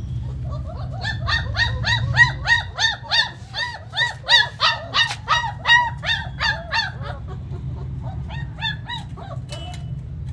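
German Shepherd puppy yelping: a rapid series of short, high, rising-and-falling yelps, about three a second, for around six seconds, then a few more near the end, over a low steady hum.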